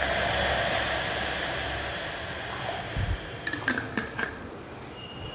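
Water poured into a pan of jaggery on the stove: a hissing rush that fades over about three seconds. A few light metal clinks follow, from a utensil against the pan.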